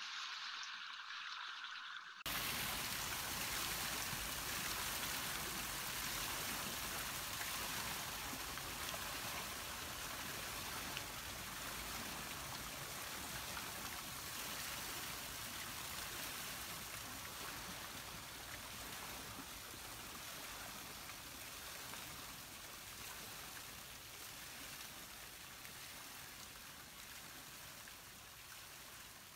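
Water gushing from a stone fountain spout and splashing into a pond: a steady rushing splash that comes in fully about two seconds in.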